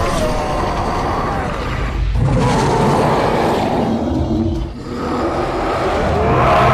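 Cartoon monsters roaring and growling, loud and rough. The sound breaks briefly about two seconds in and again near five seconds.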